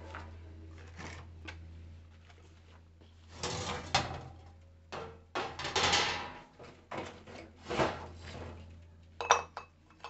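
Metal bird cage parts being handled: an uneven run of clatters, scrapes and knocks of metal and plastic as a panel is shifted and a pot lifted out, with the sharpest knock about nine seconds in.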